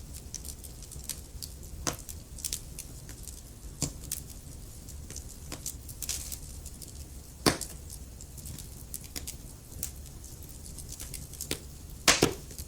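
Wood fire crackling in a fireplace: irregular sharp pops and snaps over a low steady rumble of the flames, with a louder double pop near the end.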